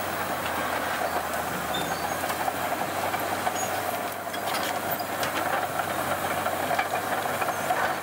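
Komatsu crawler bulldozer running steadily as its V-shaped shear blade pushes through dry brush, a continuous hissing machine noise with scattered sharp cracks.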